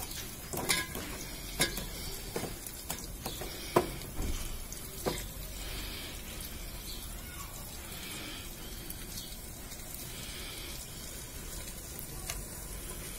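Onion and ginger-garlic paste frying in hot mustard oil in a metal pot, a steady sizzle as they brown. A metal ladle knocks and scrapes against the pot several times in the first five seconds.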